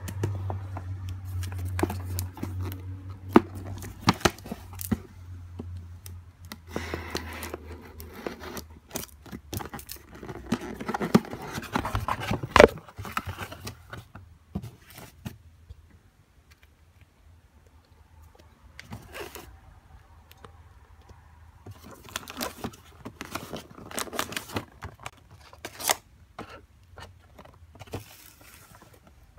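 Cardboard box and its packaging being handled and opened by hand: packing tape tearing, cardboard scraping and plastic wrapping crinkling, in irregular rustles and knocks with a quieter stretch about halfway through.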